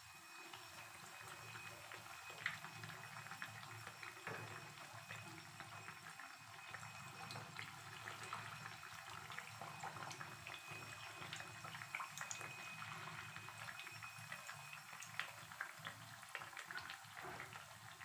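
Malpua batter deep-frying in hot oil in a kadai: a steady low sizzle full of small crackles and pops, with one sharper click about two and a half seconds in.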